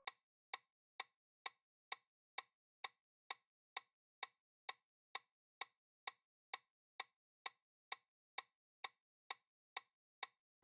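Quiz countdown timer sound effect: a steady clock-like ticking, about two short ticks a second.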